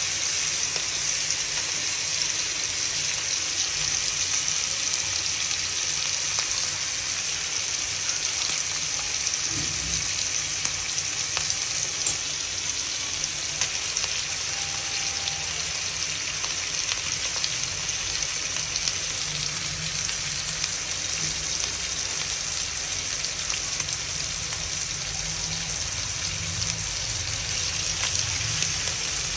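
Rohu fish steaks shallow-frying in hot oil in a pan: a steady sizzle full of fine crackles.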